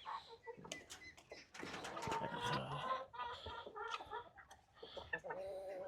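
Chickens clucking, with a few short calls and a longer, lower call near the end, among scattered light knocks.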